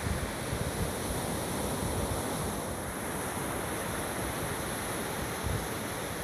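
Surf on the beach, a steady rush of noise, with wind rumbling on the phone's microphone in irregular gusts.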